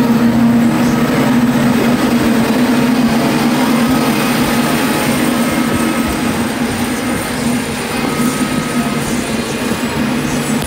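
CLAAS Jaguar 960 self-propelled forage harvester running under load while chopping grass, a loud steady machine hum over the rush of the chopped crop being blown out of the spout.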